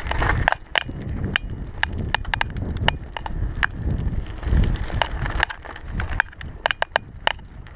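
Mountain bike riding down a dirt forest trail: a low, uneven rumble of tyres over the ground, with frequent sharp clicks and rattles from the bike as it bounces over the surface.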